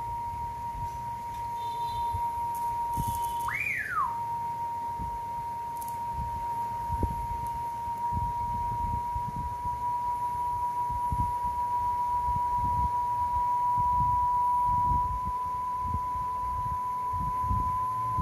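1000 Hz test tone played from a test cassette on a Sony CFS-1133S cassette player, pitch creeping slowly up toward 1 kHz as the capstan motor speed is trimmed: the tape had been running slightly slow. About three and a half seconds in the pitch swoops up sharply and drops straight back. Low knocks and rumble of handling sit underneath.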